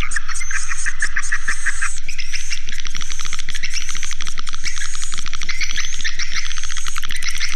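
Recorded swiftlet calls: dense, continuous twittering chirps mixed with rapid trains of clicks, the lure sound played to draw swiftlets into a nesting house. The clicks grow denser about two seconds in.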